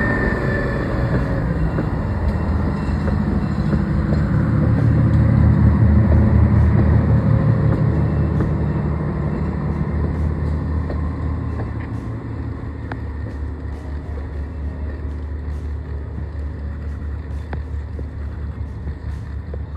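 Budd RDC rail diesel car's underfloor diesel engines running with a steady low drone. They build up to their loudest a few seconds in, then ease off past the midpoint. Faint scattered clicks sound in the later part.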